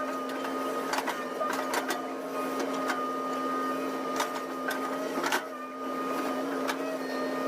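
Excavator running with a steady whining hum, with scattered sharp clicks and knocks as it digs; the hum dips briefly after about five and a half seconds.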